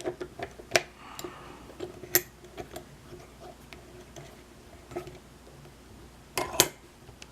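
Sharp metal clicks and knocks of a lock being handled and set in a bench vise: a few single clicks in the first couple of seconds, then a louder double knock about six and a half seconds in.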